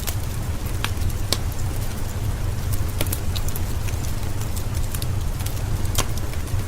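Steady rain under a crackling wood fire, with a low rumble beneath and scattered sharp pops from the burning logs.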